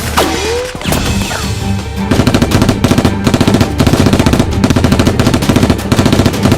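Rapid automatic gunfire sound effects with many fast shots, growing denser and louder about two seconds in, over background music.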